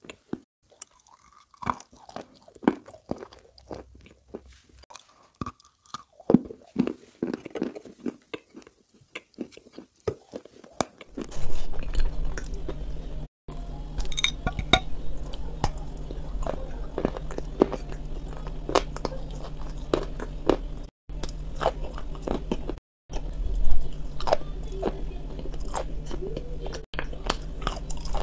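Close-miked eating: sharp crunches and chewing as cream-topped biscuits are bitten and chewed. About eleven seconds in, a steady low hum comes in under the crunching.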